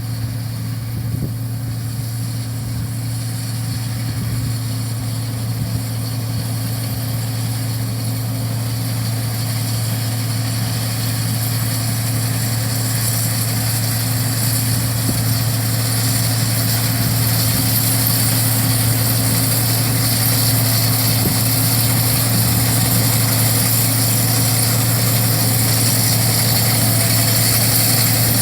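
Heavy harvest machinery running steadily: a constant deep engine hum with a hiss over the top. The hiss thickens and the whole sound grows gradually louder.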